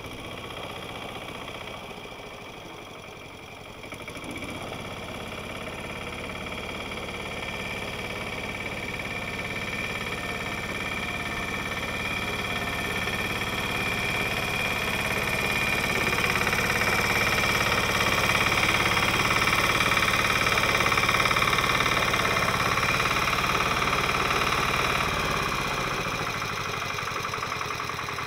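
Westwood ride-on mower's diesel engine running as it moves a heavy twin-axle trailer, growing louder as it comes closer. Its revs drop about 25 seconds in.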